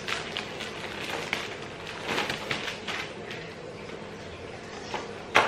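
Padded fabric seat cover being fitted onto a plastic high chair: rustling and small knocks of handling throughout, with one sharp knock near the end.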